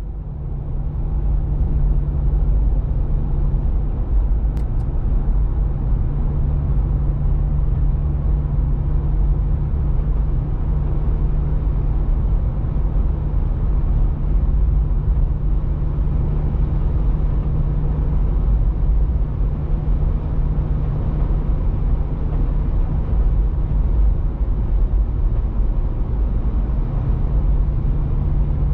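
Steady drone of a car driving at cruising speed, heard inside the cabin: a low hum of engine and tyres on the road with a hiss of wind and road noise over it. It fades in over the first second or so, then holds level.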